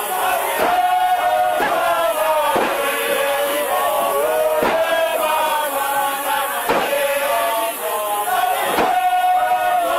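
A large group of men singing a Zion Christian Church mokhukhu chant in unison, with heavy stamps of many feet together about once a second.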